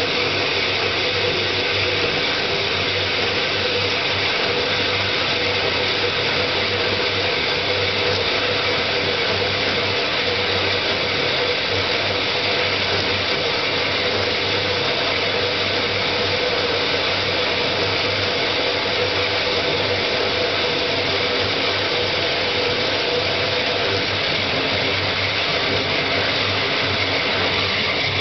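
Motor-driven homemade bandsaw with bicycle-wheel blade wheels, running steadily with a dense whir and a low hum.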